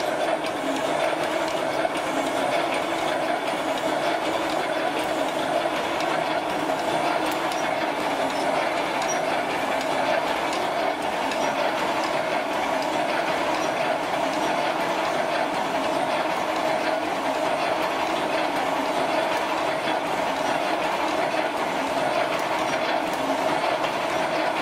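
A 1.8 m-wide roll-type welded wire mesh machine running: a steady, rapid mechanical clatter from its welding head and mesh feed.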